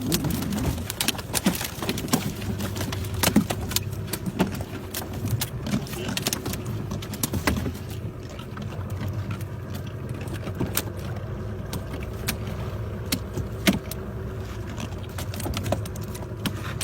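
A boat motor running steadily, with many sharp clicks and knocks on top.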